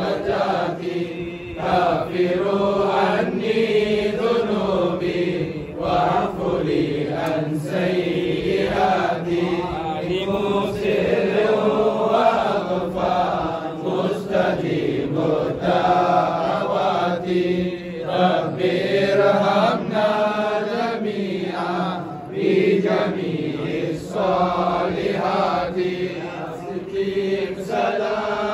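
Men's voices chanting the Salam, the standing salutation to the Prophet, together in a slow, continuous melodic chant.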